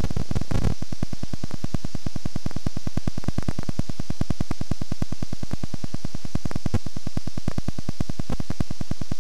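Static buzz from a blank stretch of VHS tape: a steady hiss with a fast, even pulsing.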